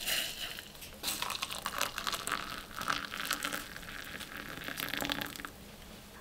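Hot water poured from a metal pot into a plastic mug, a steady splashing trickle that starts about a second in and fades near the end.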